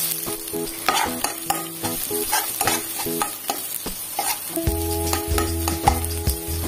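Metal spoon stirring and scraping chopped shallots, garlic and chillies as they sizzle in oil in a metal wok, with a scrape against the pan about three times a second.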